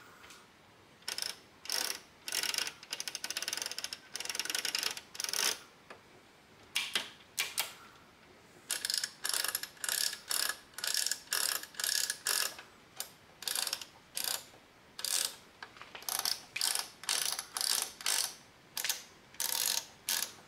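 Rotary wafer selector switches of a Soviet Odyssey U-010 amplifier clicking through their detents as the metal knobs are turned. They make repeated short runs of sharp mechanical clicks, some in quick rattling trains, with brief pauses between turns.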